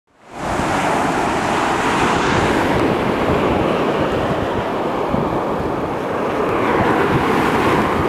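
Sea surf breaking and washing up onto a sandy shore, a steady rush of waves, with wind buffeting the microphone.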